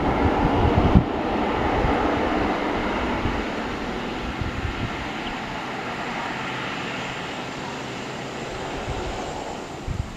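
Jet airliner passing by, a broad rushing engine noise that is loudest in the first couple of seconds and then slowly fades away. Low wind thumps hit the microphone in the first second or so.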